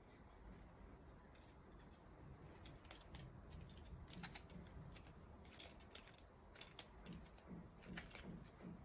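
Faint, scattered clicks and taps of plastic casing parts and a metal-framed LCD module being handled by hand, more frequent from a few seconds in.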